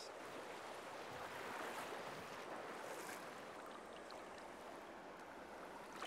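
Steady, faint rush of a fast-flowing river running over a stony riffle.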